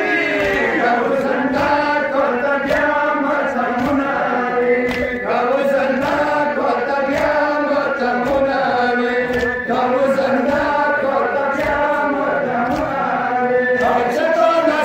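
A crowd of men chanting a mourning lament (nauha) together, many voices overlapping. Under the voices runs a regular beat of sharp slaps, about one every second or less, typical of matam chest-beating.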